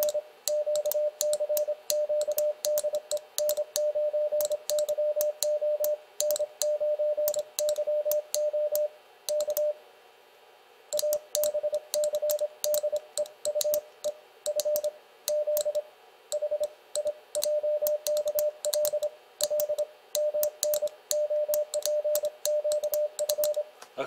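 Morse code sent at 26 words per minute on a brass paddle key, running through the alphabet: the transceiver's sidetone beeps a steady mid-pitched tone in quick dits and dahs, with light clicks from the paddle contacts and a pause of about a second near the middle. At this speed some of the dits come out wrong.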